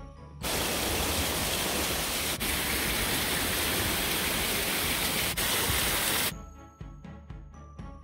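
Loud, steady rush of falling water from a waterfall. It cuts in abruptly about half a second in and cuts off abruptly about six seconds in, with background music before and after it.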